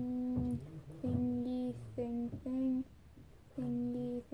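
A person humming a short tune in a run of held notes, each about half a second long, stepping up and down in pitch with short breaks between them.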